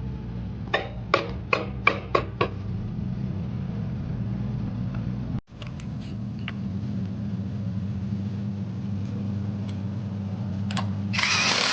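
Six sharp knocks in quick succession about a second in, over a steady low hum. Near the end there is a short burst of hiss.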